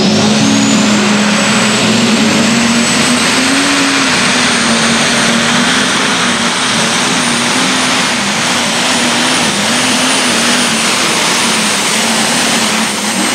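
Light super stock pulling tractor's turbocharged diesel engine at full power, dragging the weight sled. A high turbo whine climbs in pitch over the first second and then holds steady over the engine's steady note, which dips slightly now and then. Right at the end the whine starts to fall as the run ends.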